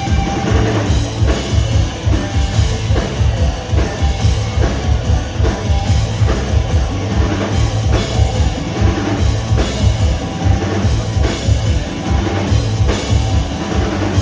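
Rock band playing an instrumental passage, with a driving drum kit beat and heavy bass.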